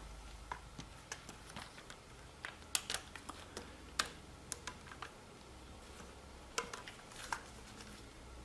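Faint, scattered clicks and taps of a bicycle rear mudguard's mounting clamp being spread open and handled, with the sharpest clicks about three and four seconds in.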